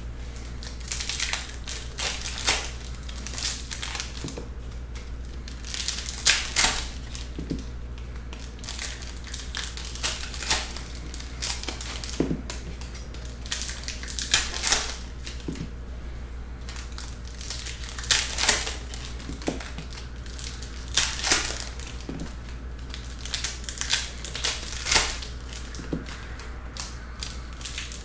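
Trading cards handled and sorted by hand: a run of brisk, irregular rustles and slides as cards are drawn from a stack and dropped onto piles on a padded mat, some strokes louder than others.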